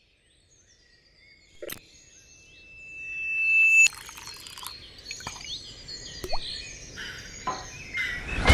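Outdoor ambience with small high chirps, then a steady high whistling tone that swells over about two seconds and cuts off suddenly about four seconds in. After it come scattered small plops, drips and clicks of liquid.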